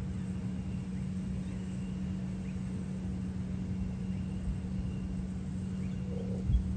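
A steady low mechanical hum over a low rumble, with a few faint, short, high bird chirps and a brief low bump near the end.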